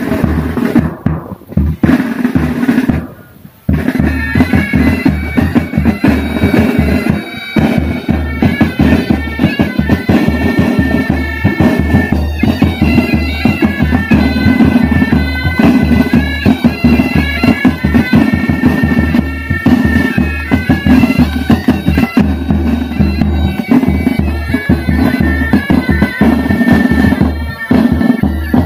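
Military pipe band playing: a short passage of drums, then about three and a half seconds in the bagpipes come in with their steady drone and melody over snare and bass drums.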